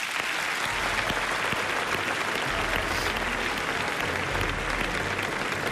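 Large audience in a hall applauding, a dense, steady wash of many hands clapping.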